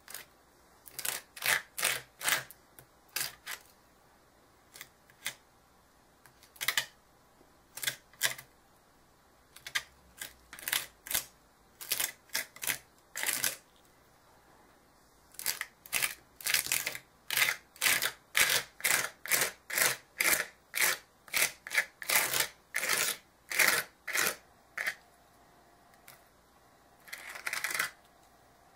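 Metal palette knife scraping texture paste across a stencil, in short dry strokes. The strokes come now and then at first, then in a quick steady run of about two a second, ending in one longer scrape.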